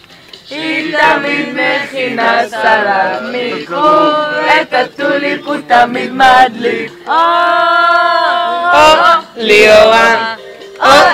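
A group of men and women singing a song in Hebrew together, holding one long note about seven seconds in.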